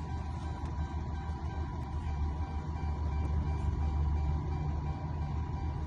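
A vehicle engine idling steadily: an even low rumble with a faint steady high tone above it.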